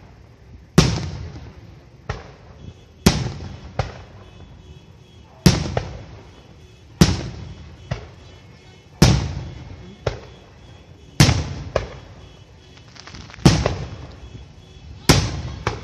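Aerial firework shells bursting overhead: a loud bang about every two seconds, often with a smaller pop soon after, each trailing off briefly.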